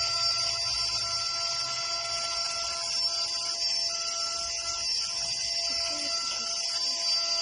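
Handheld cordless vacuum cleaner running steadily, its small high-speed motor giving a constant high-pitched whine over airy hiss.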